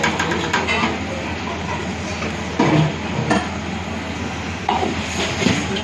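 Metal ladle clanking and scraping against a large metal wok as sev is dropped in and stirred through the Manchurian mixture, over a steady background rush of noise.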